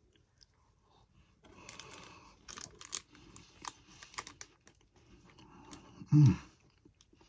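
Plastic snack wrapper being torn open and crinkled, with scattered sharp crackles and clicks. Near the end, a short loud vocal sound from the person, like a brief hum.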